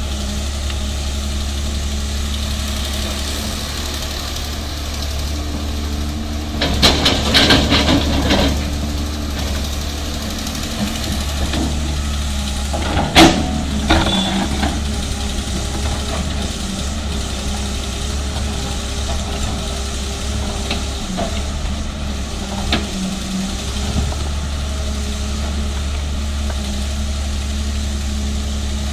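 330 excavator's diesel engine running steadily. A loud clattering stretch comes about seven seconds in, a single sharp bang near halfway, and a few smaller knocks later: gravel mixed with broken rock being loaded into a dump truck.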